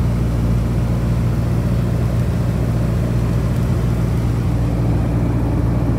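Piper Super Cub's piston engine and propeller running steadily in level flight, heard from inside the cockpit as an even, unchanging drone.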